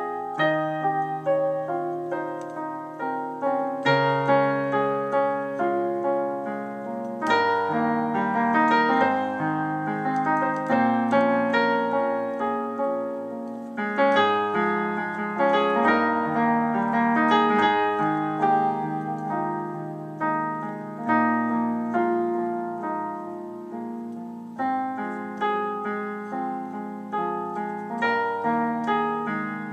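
Solo improvised piece on a digital piano: sustained chords over a bass note that changes every few seconds, with a melody played above.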